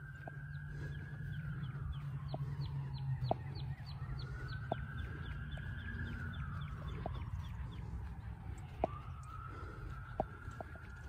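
Alpacas calling: three long, shrill calls, each rising quickly and then sliding slowly down over about three seconds, with a fast rattling pulse through the first two, over a steady low rumble.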